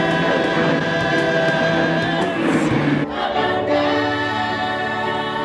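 A group of voices singing in chorus, holding long notes. About three seconds in, the sound cuts abruptly to another sung passage.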